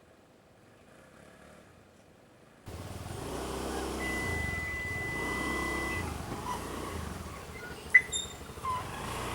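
Near silence that cuts abruptly to a motor vehicle engine running on the road from about three seconds in, with a steady high tone for about two seconds and a sharp, short high-pitched sound near the end.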